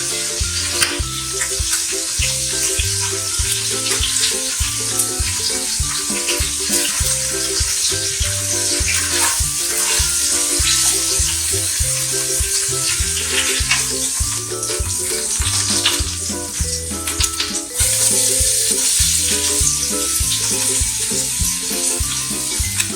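Food frying in hot oil in a pot, a steady sizzle that gets louder about eighteen seconds in, with scattered clicks. Upbeat background music with a steady beat plays along.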